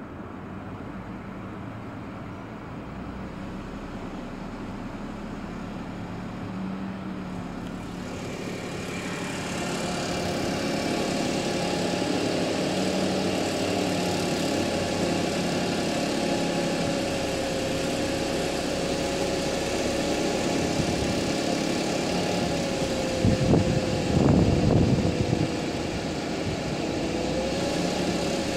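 Audi A6 3.0 TFSI supercharged V6 engine running. About eight seconds in, the revs come up a little and hold, with a steady whine over the engine note. Near the end comes a couple of seconds of loud low thumping.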